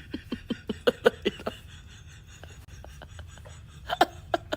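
A person laughing in short bursts, about five a second, dying away after a second and a half, then a few more bursts near the end.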